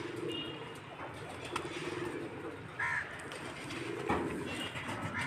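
Pigeons cooing in the background: several low, repeated coos, with a short higher-pitched sound about three seconds in.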